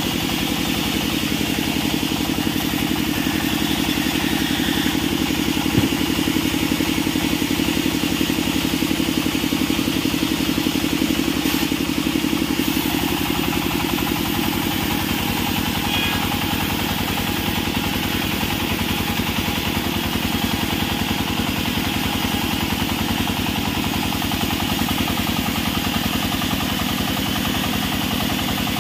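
Large cast-iron vertical band saw running steadily while a thick timber beam is fed through it, with one short knock about six seconds in.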